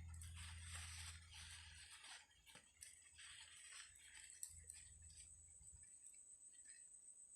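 Faint rustling and handling noises, mostly in the first half, over a steady high-pitched insect trill.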